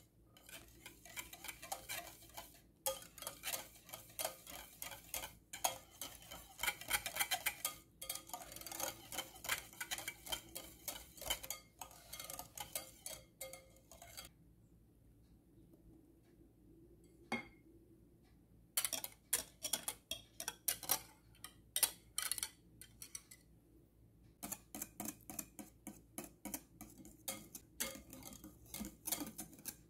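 Metal balloon whisk rapidly clicking and scraping against the sides of a glass bowl as it beats a thick cream-cheese mixture. It stops for a few seconds about halfway through, then starts again.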